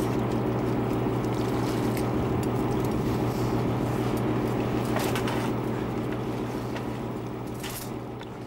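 Boat engine running with a steady low hum, two short knocks about five and seven and a half seconds in, and the whole sound fading out toward the end.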